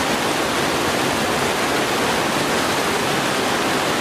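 River water rushing, a steady, even noise without a break.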